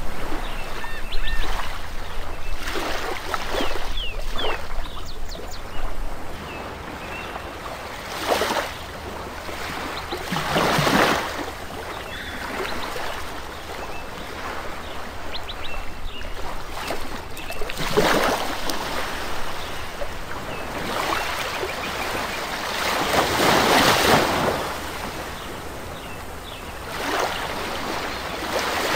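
Steady rushing of moving water, like aquarium water circulating, swelling louder for about a second several times. A few faint high squeaks come in the first few seconds.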